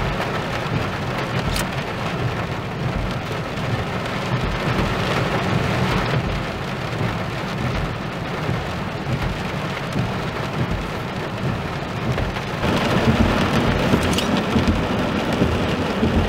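Heavy rain with thunder rumbling in a thunderstorm, as a steady noise that gets louder near the end.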